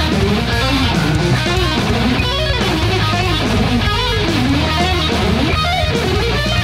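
Electric guitar playing a fast shred solo, quick runs rising and falling in pitch, over a backing track with steady sustained bass notes.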